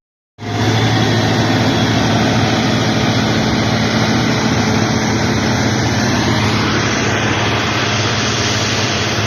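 A vehicle engine running steadily, with a low hum under a loud, even rush of noise; it starts abruptly about half a second in.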